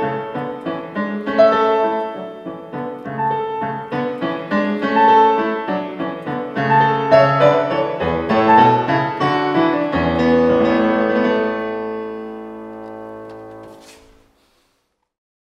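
Solo piano music, ending on a long held chord that fades away and cuts off about fourteen seconds in.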